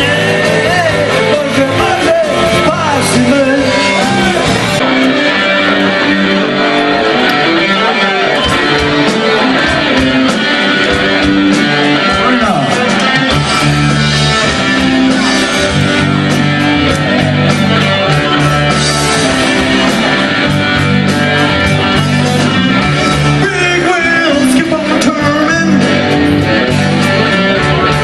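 Blues band playing live: electric guitar over a bass line and drums, loud and steady throughout.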